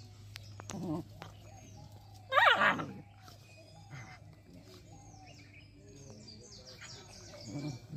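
Dogs play-fighting: a loud, short yelping cry with a bending pitch about two and a half seconds in, and a few low growls about a second in and again near the end. Small birds chirp in the background throughout.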